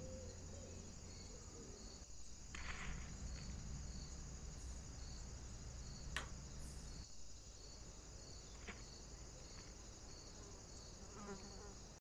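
A steady, high-pitched insect buzz like crickets, with faint regular pulsing. A single sharp tap comes a little after six seconds, with a few brief softer rustles and clicks around it.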